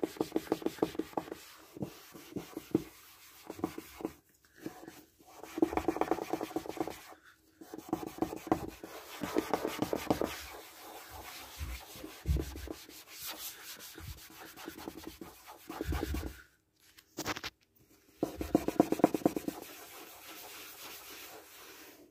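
A damp cloth scrubbed hard back and forth over a plastic PVC windowsill to rub off ingrained dirt: fast scratchy rubbing strokes in bouts of one to three seconds with short pauses between.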